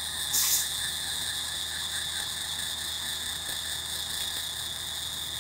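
Pencil-style rotary grinder spinning a small gray abrasive wheel with a steady high-pitched whine as it blends a 1911's grip safety into the frame. A brief louder hiss comes about half a second in.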